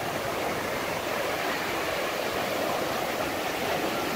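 Small ocean waves breaking and washing over the sand at the water's edge: a steady rushing wash.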